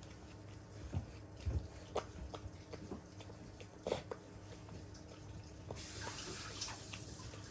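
Elderly dachshund eating from a bowl: irregular wet smacks and clicks of chewing and licking. About six seconds in, a steady hiss joins in.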